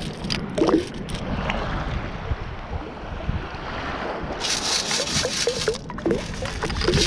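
Wind buffeting the microphone over shallow water sloshing. About four and a half seconds in, a metal sand scoop full of pebbles is shaken, and stones and water rattle through its perforated basket for about a second.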